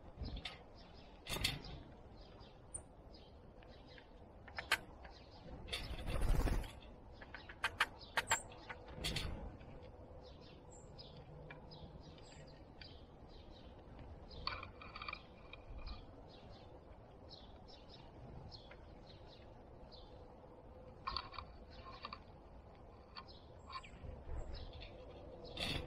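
Small backyard birds chirping and calling on and off, with scattered sharp taps and knocks and one louder burst of noise about six seconds in.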